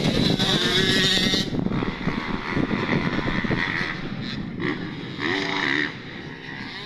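A motor vehicle engine running, loudest for the first second and a half and then lower and rougher. A short tonal sound comes about five seconds in.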